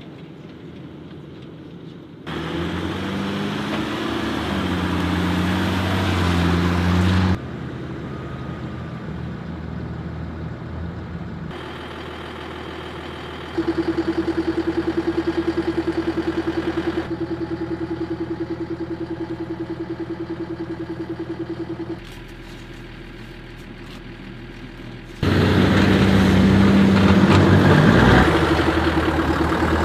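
Engines of military tactical vehicles running: in one stretch the revs rise and fall, in another they hold a steady idle with a fast pulse. The sound changes abruptly at several points.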